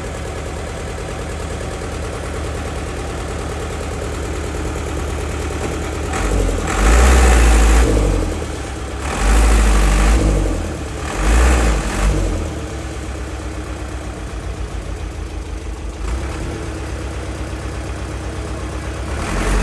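Heavy diesel engine of earthmoving machinery running steadily at idle, revving up in three surges between about six and twelve seconds in, then settling back to idle.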